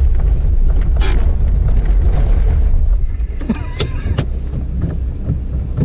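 Toyota RAV4 being driven off-road, a heavy low rumble of engine and rough ground. A sharp knock comes about a second in, and a few more knocks come a little past halfway. After those the rumble drops.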